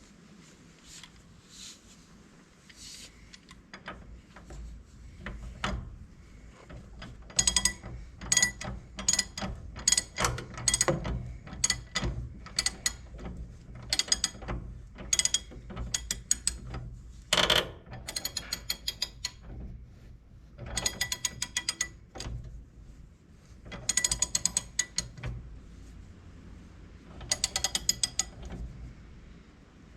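Hand socket ratchet clicking in short bursts of rapid clicks, repeated about a dozen times with pauses between, over a faint low hum.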